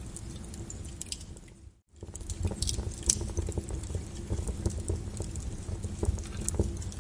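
Wood fire in a fireplace crackling, with irregular sharp pops over a low rumble. A little under two seconds in the sound fades almost to nothing for a moment, then comes straight back.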